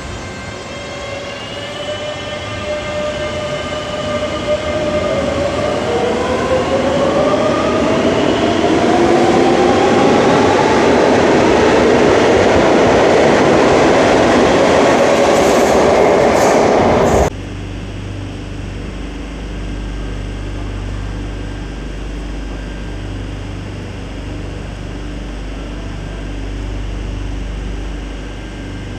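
Madrid Metro 7000-series train moving along the platform, its traction motor whine climbing in pitch in several rising tones as it picks up speed, growing loud over the wheel and rail noise. About 17 seconds in this gives way abruptly to the steady low hum of a train standing at a platform.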